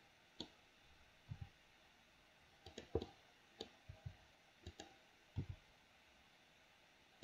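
Irregular clicks of a computer mouse and keyboard keys, about a dozen, some in quick pairs, over a quiet room background.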